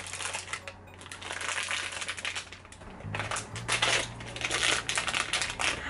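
Small paper and plastic toy packaging being crinkled and torn open by hand, a run of dense crackling that grows busier and louder about halfway through.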